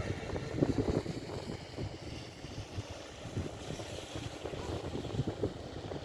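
Low, uneven rumble of a diesel locomotive, with wind gusts buffeting the microphone, the heaviest about a second in.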